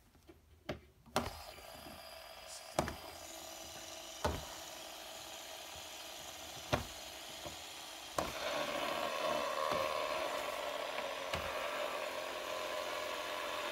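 Metal fidget spinners flicked into spinning one after another, each start a sharp click, with a steady whirring that grows louder as more spinners run, the loudest step about eight seconds in.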